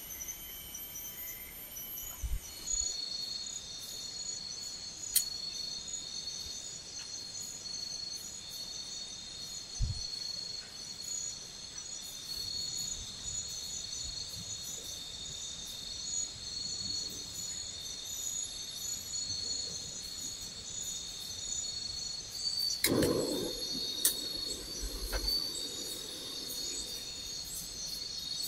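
Forest insects calling in a steady, high-pitched chorus of shrill trilling tones; the mix of tones shifts about two and a half seconds in. About 23 seconds in there is a brief louder noise.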